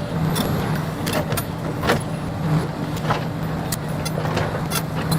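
Excavator engine running steadily, with sharp cracks and knocks scattered through.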